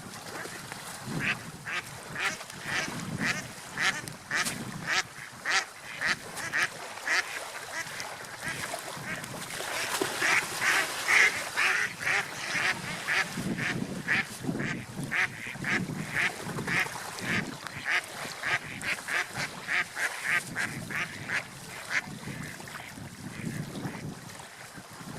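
Ducks quacking in a long series of short, quick calls, two or three a second, busiest about ten to twelve seconds in, over a low rush of wind and water.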